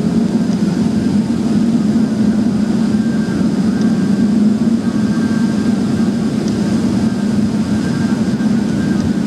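Model train cars rolling past on their track with a steady, noisy rumble.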